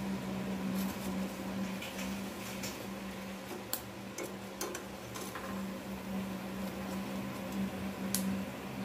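Breaded pies shallow-frying in hot oil in a nonstick pan, a steady crackling sizzle, with sharp clicks of metal tongs against the pan as the pies are turned and lifted, the loudest about four and eight seconds in. A steady low hum runs underneath.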